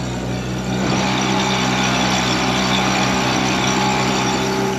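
Suzuki 9.9 kicker outboard motor running steadily in gear, pushing the boat at low trolling speed. It is quiet and even, and gets slightly louder about a second in.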